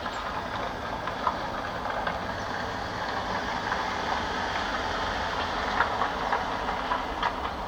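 Steady rumble of a passing vehicle, with short clicks scattered through it.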